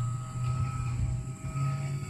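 An engine running steadily with a low hum; its pitch steps up slightly about a second and a half in.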